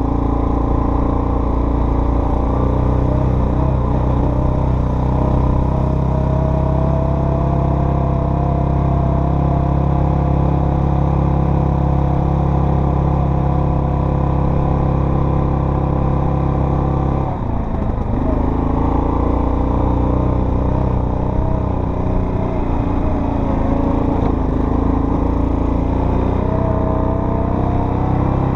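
Off-road vehicle engine running steadily under way. It drops off briefly about two-thirds of the way through, then picks up again.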